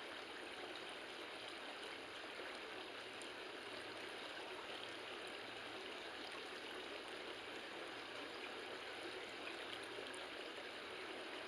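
A mountain stream rushing steadily over rocks, an even flowing sound with no breaks.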